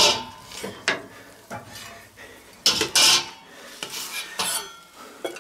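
Wooden spatula scraping and stirring pieces of fried chicken around a stainless steel pot, in a string of irregular scrapes. The louder strokes come at the start, around three seconds in and again a little later.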